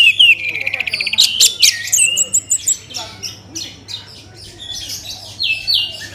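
Orange-headed thrush singing a varied song: a loud, rapid trill in the first second, then sharp high whistles and down-slurred notes, growing softer and sparser after about three seconds.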